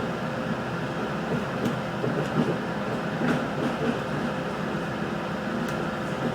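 Steady running noise inside a moving Adelaide Metro 3100 series diesel railcar, with the wheels on the track and a few faint sharp clicks.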